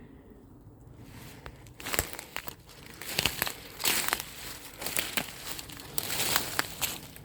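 Footsteps pushing through brush and leaf litter off-trail: irregular crunching and crackling with sharp snaps of twigs, starting about a second in.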